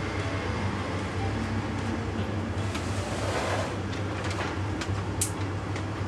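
Vacuum cleaner running steadily, a constant low hum under an even rushing noise.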